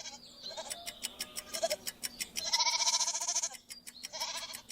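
Goat bleating: a few short calls, then a long wavering bleat about two and a half seconds in and a shorter one near the end, over a fast, even ticking.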